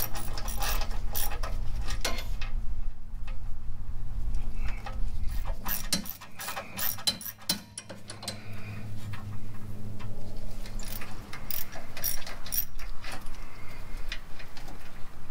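Hand ratchet wrench clicking in quick runs as fasteners are backed out, then in scattered clicks and knocks of tool on metal. A steady low hum runs underneath and drops out for a couple of seconds about six seconds in.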